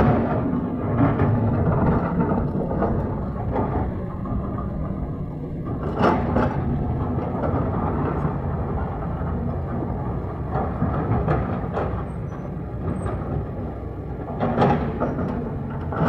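Diesel engine of a JCB 3DX backhoe loader running steadily. A couple of sharp knocks stand out, one about six seconds in and another near the end.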